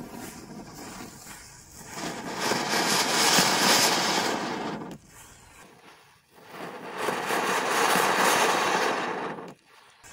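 Diwali firework spraying sparks with a steady rushing hiss, heard twice for about three seconds each time, each time cut off abruptly.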